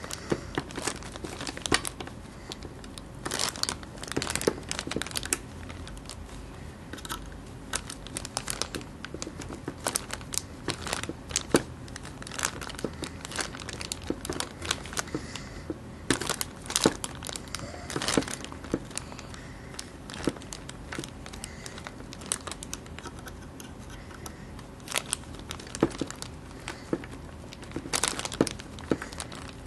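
Irregular clicks, taps and rustling as the small metal parts of a disassembled Tanfoglio Witness 1911 CO2 air pistol are handled and fitted back together.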